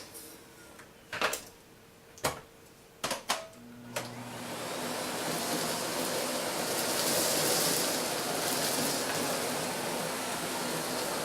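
A few sharp clicks, then a vacuum cleaner switched on about four seconds in, its motor spinning up and then running steadily.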